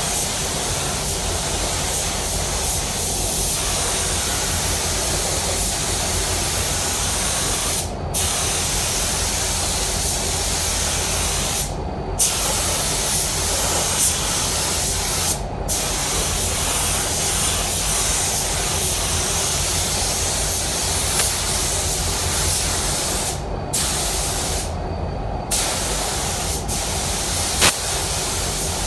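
Compressed-air paint spray gun hissing steadily as paint is sprayed onto a car bumper. The hiss cuts off briefly several times as the trigger is released between passes, over a steady low rumble that continues throughout.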